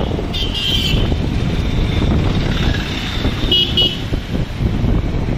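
Riding on a motorcycle in town traffic: a steady low rumble of engine and wind on the microphone, with a vehicle horn tooting about half a second in and two short beeps near four seconds.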